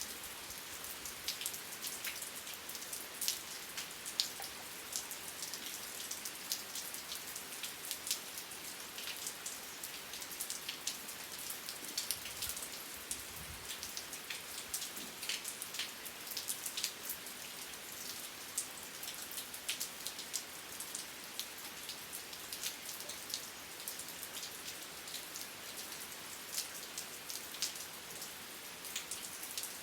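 Steady rain falling, a constant hiss with many individual drops ticking sharply through it.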